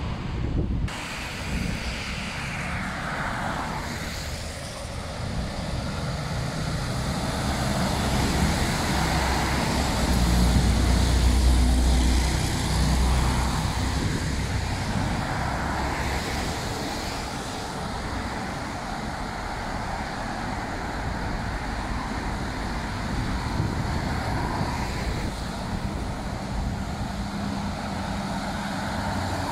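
Road traffic passing on a wet multi-lane street: tyres hissing on the wet pavement, with a louder low rumble about ten seconds in as a vehicle passes close. Near the end the steady engine drone of an approaching heavy truck comes in.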